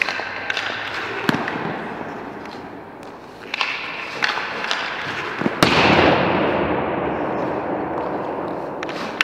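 Ice-rink sounds: hockey skate blades scraping the ice, with sharp cracks of sticks and pucks echoing through the arena. The loudest is a sudden hard crack and scrape a little past halfway that rings on for a moment.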